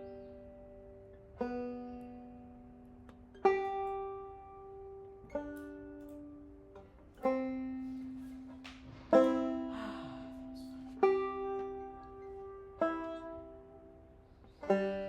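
Background music: slow, single plucked-string notes, about one every two seconds, each ringing out and fading.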